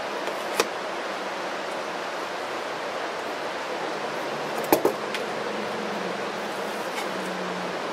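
A metal spork clinks against a metal canteen cup, once about half a second in and in a short cluster a little before five seconds in, over a steady hiss.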